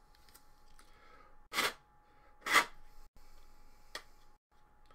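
Two short rustling noises about a second apart, the second the louder, as trading cards and their packaging are handled, followed by a single light click.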